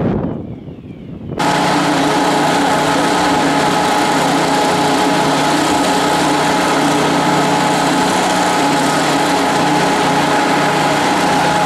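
Engine-driven firefighting equipment running steadily at a constant high speed, a loud even drone with a steady whine over it. It cuts in about a second and a half in, after a moment of wind buffeting the microphone.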